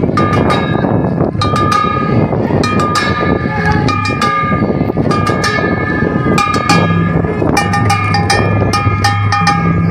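Folk song: voices singing held notes over a steady beat of sharp metallic clanging and a low drum.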